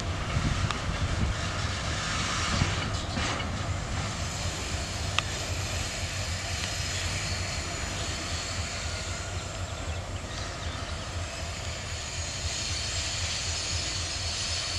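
TGM6D diesel-hydraulic shunting locomotive running with a steady low engine rumble as it hauls a flat wagon slowly away, growing slightly fainter. A few sharp clicks of wheels on the track come in the first five seconds.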